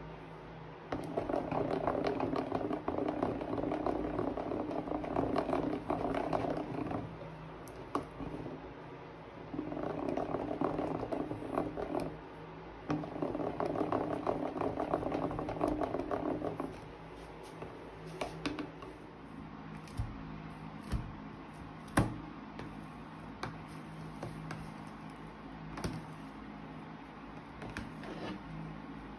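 A plastic spatula stirring thick, sticky slime in a plastic tub, giving three spells of dense, crackly squishing. After that come quieter sticky pokes and a few sharp clicks as fingers press into the slime.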